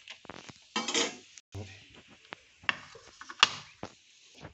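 A series of irregular metallic clicks and short scrapes: a steel slotted skimmer knocking and scraping against the kadhai and the plate as fried potato chips are lifted out and set down.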